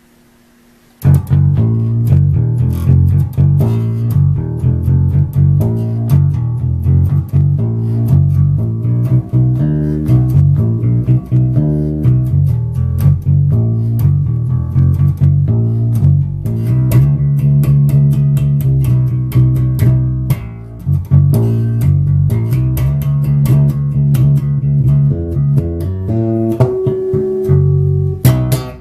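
Fernandes Revolver Bass FRB-65 four-string electric bass played fingerstyle through an amplifier: a busy line of quick plucked notes that starts about a second in, ending on a held higher note.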